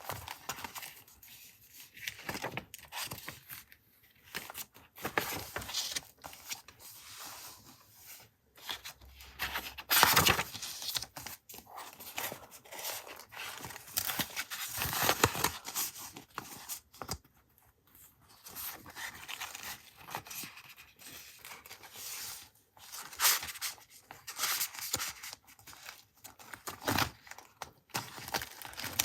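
Paper being torn and handled for a collage journal page: irregular rips, rustles and light taps of paper.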